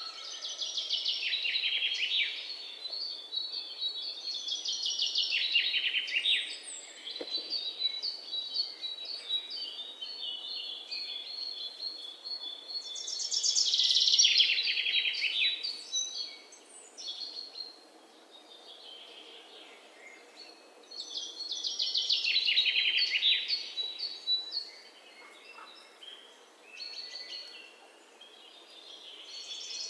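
Songbirds singing: a loud song phrase of about two seconds, falling in pitch, comes around five times, with softer high chirps in between.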